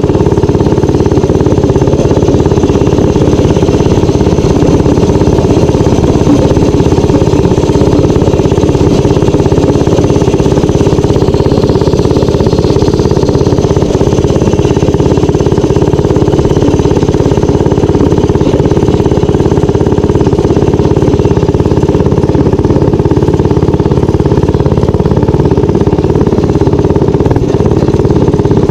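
Minibike engine running at a steady speed under load while riding, with little change in pitch.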